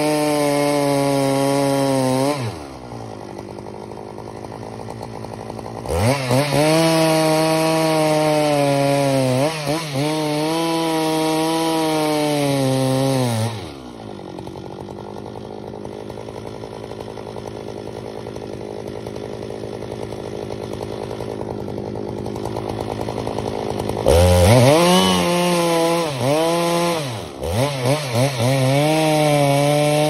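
A two-stroke chainsaw cutting larch at full throttle in runs of several seconds, its pitch sagging a little as the chain bites. Between runs it drops back to idle, once briefly and once for about ten seconds in the middle. Near the end come a few quick blips of the throttle before it runs high again.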